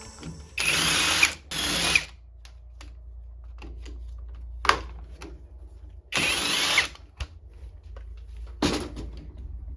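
Workbench tool sounds during a chainsaw teardown: four short bursts, each half a second to a second long, with a single sharp click between them.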